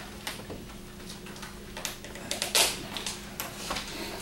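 Irregular light clicks and taps, the loudest about two and a half seconds in, over a steady low electrical hum.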